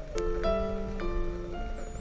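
Background piano music: several notes and chords struck in turn, roughly half a second apart, over a low steady rumble.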